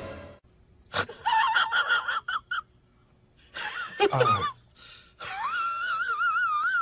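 A domestic cat makes a series of short, high, wavering meows, then one longer warbling meow near the end.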